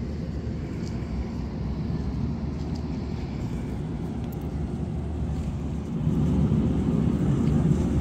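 Car engine running with a steady low rumble, growing louder for the last couple of seconds as a car comes close.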